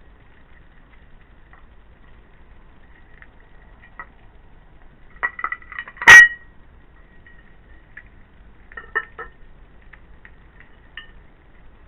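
A hedgehog knocking a plate and bowl on the patio floor: a few light clinks, then one loud clatter about six seconds in, and more clinks near nine seconds as it moves to the bowl.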